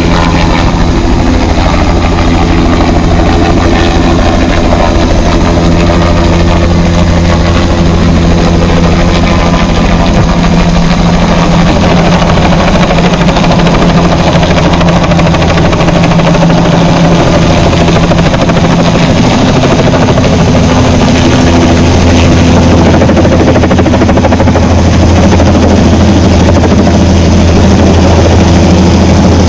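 Helicopter running close by: a loud, steady rotor and engine noise with low humming tones that shift slightly partway through.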